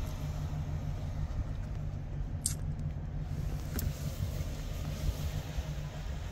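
Steady low rumble of a car creeping along in slow traffic, heard from inside the cabin, with two brief high clicks midway.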